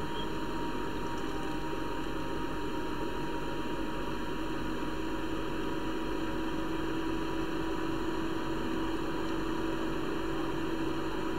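Steady hiss with a constant low electrical hum, unchanging throughout.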